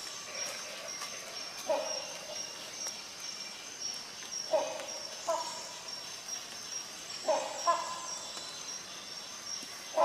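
Rhinoceros hornbill calling: five short calls, the last four coming in quick pairs.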